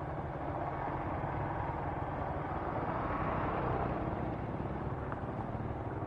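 Motorcycle engine running steadily while riding, with a continuous rush of wind and road noise that swells slightly around the middle.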